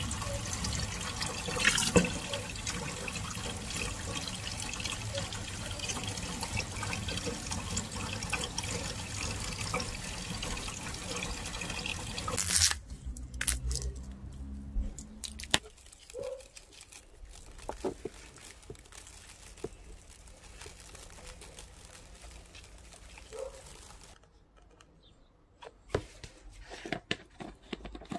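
Tap water running steadily into a sink, shut off abruptly about twelve seconds in. After that, quieter scattered knocks and handling sounds.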